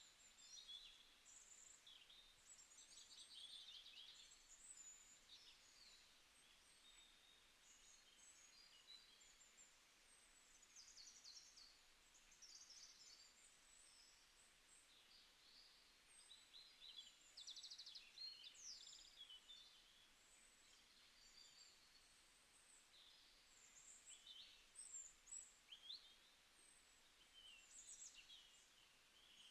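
Faint birdsong: several birds chirping and trilling at once and overlapping throughout, over a low steady hiss.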